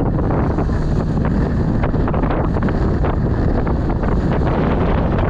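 Wind buffeting the microphone on the open deck of a moving ferry, in constant gusts over a low steady rumble from the boat.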